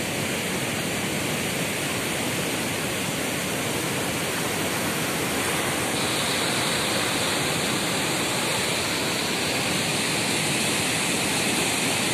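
Muddy floodwater rushing over a low spillway and churning in rapids below, a steady loud rush of water. It grows a little louder and hissier about halfway through.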